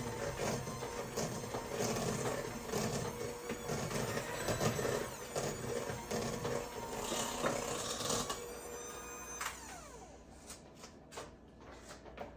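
Electric hand mixer beating cream cheese frosting in a bowl, its beaters rattling against the mix. About eight seconds in it is switched off and the motor winds down, falling in pitch, followed by a few light clicks.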